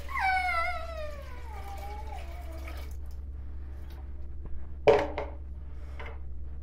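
Water poured from a plastic jug into a steel cooking pot, with a tone that slides down in pitch over the first three seconds. A single sharp knock about five seconds in.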